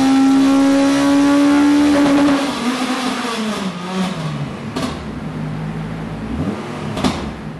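Millington Diamond 2.5-litre four-cylinder race engine in a Mk2 Ford Escort on a rolling-road dyno, held at high revs under full throttle, still climbing slightly. About two seconds in the pull ends and the revs fall away to a lower, steady running note. Two sharp cracks come later, near five and seven seconds in.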